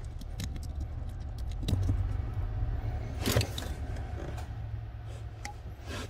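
Plastic clicks and rattles of a car wiring-harness connector being taken apart by hand as its terminal insert is slid out of the housing, with a louder snap about three seconds in, over a low steady hum.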